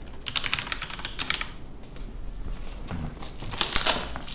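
Plastic packaging of a convenience-store lunchbox crinkling and crackling as it is handled and unwrapped, in two bouts, the second louder near the end.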